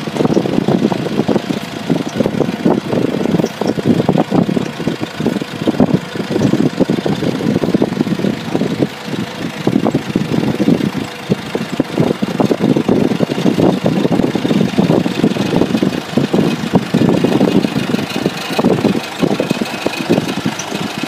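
Forklift engine running at idle and low revs, uneven and rattly, with frequent irregular knocks and clanks over it.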